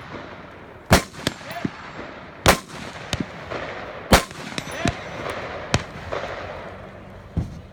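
Rifle shots fired at a steady pace, four loud reports about a second and a half apart, each echoing. Smaller clicks and pops fall between them.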